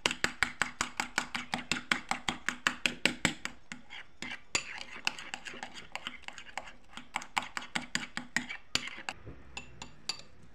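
A metal spoon stirring and mashing banana paste in a ceramic bowl. It clinks against the bowl in a fast run, about four to five times a second, for the first few seconds, then goes on as a softer scraping stir with scattered clinks that thin out near the end.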